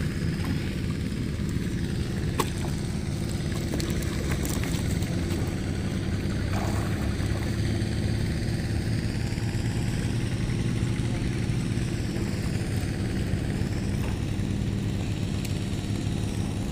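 A small engine running steadily at a constant speed, with a few faint clicks over it.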